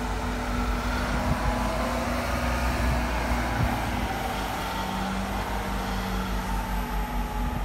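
City bus pulling away from a stop and driving off: a steady engine drone with a faint whine over it.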